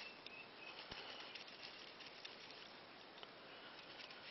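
Faint scratchy scrubbing of a toothbrush around the threaded rim of a glass canning jar, with a light tick about a second in.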